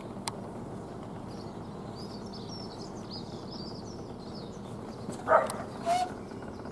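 Small birds chirping over a steady low background noise. About five seconds in comes a short, sharp, loud sound, then a brief higher-pitched call half a second later.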